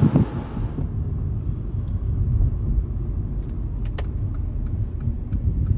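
Car interior road noise while driving: a steady low rumble of engine and tyres, with a few faint light clicks in the second half.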